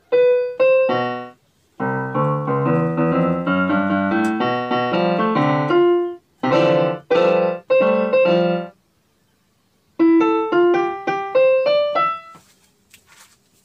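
Davis D-208 electronic keyboard being played: a few single notes, a flowing run of notes, then four short chords. After a pause of about a second comes a quick run of single notes climbing in pitch.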